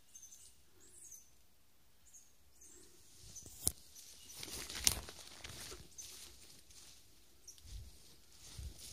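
Faint rustling of someone walking through woodland undergrowth and leaf litter, with two sharp clicks about a second apart near the middle and a few faint high chirps in the first couple of seconds.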